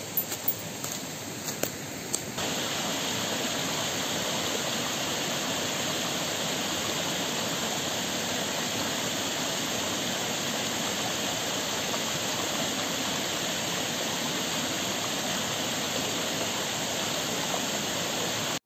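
River water flowing, a steady rush. A few faint clicks come in the first two seconds, then the rush jumps to a louder, fuller sound about two seconds in.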